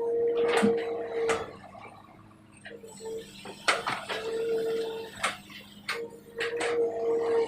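Excavator at work: a steady engine hum with a flat hydraulic whine that rises in and cuts out four times, and sharp metal clanks and knocks in between.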